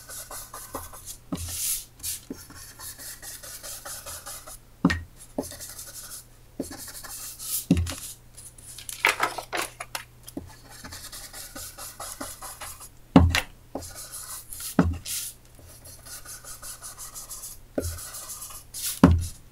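An ink-blending tool's foam pad is rubbed and swirled over paper, blending ink in with a soft, scratchy rubbing. Several sharp taps or knocks break in every few seconds, and the loudest comes about two-thirds of the way through.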